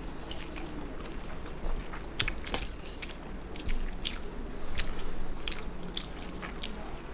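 A person eating close to the microphone: chewing and biting, with many small wet mouth clicks, and one sharp click about two and a half seconds in.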